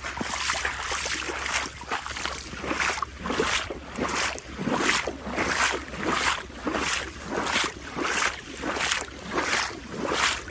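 Footsteps wading through shallow floodwater in boots, an even sloshing splash with each step, about one and a half steps a second.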